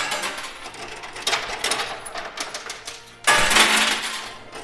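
Coin pusher machine: metal coins clicking and sliding against each other as the pusher shelf shoves them forward, with a louder rush of jingling coins a little over three seconds in.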